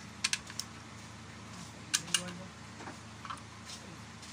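Sharp metallic clicks of a socket wrench on a long extension working bolts in the bottom end of a Nissan MR18 engine: three quick clicks near the start and two more about two seconds in, over a steady low hum.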